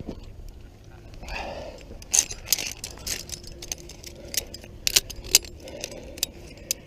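Via ferrata carabiners and lanyard gear clinking against each other and the steel safety cable as the climber moves along it. The clicks are sharp and irregular and come in a busy run from about two seconds in.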